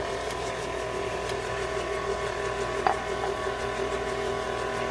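Electric mixer motor running steadily with an even whine, beating eggs into the oil and sugar. A brief light tap about three seconds in.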